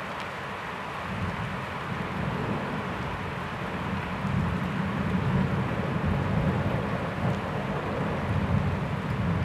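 Thunderstorm: a steady hiss of rain under a low rolling rumble of thunder that builds about a second in and grows louder from about four seconds on.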